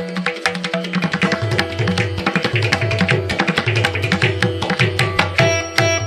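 Indian classical-style instrumental music: tabla playing a quick, steady rhythm over plucked strings and held tones.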